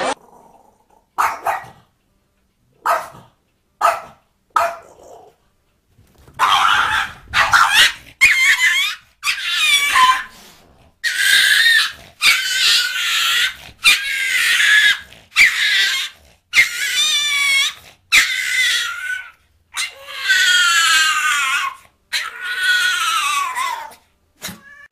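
A small dog barking and growling in a run of loud, high-pitched, strained calls, each about a second long and coming one after another. A few short separate sounds come first.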